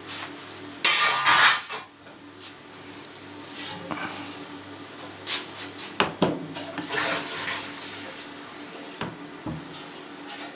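Wooden spatula scraping and knocking against a stainless steel bowl as suluguni curd is worked and turned in hot whey, with the whey sloshing; the loudest scrape comes about a second in.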